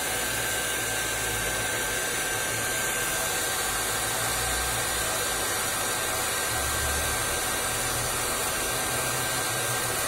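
Nova compact hair dryer running on its fast setting: a steady rush of air with a thin, high, even whine from the motor, over an uneven low rumble.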